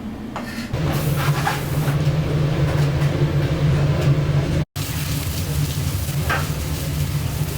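Steady low hum of the wood-fired rotisserie machinery running, with a light sizzling crackle over it. The sound drops out for an instant about two-thirds of the way through.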